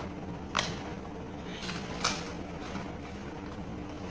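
Two sharp plastic clicks about a second and a half apart, with light handling rustle, as parts of a plastic toy gun are handled and fitted together while its chamber is loaded.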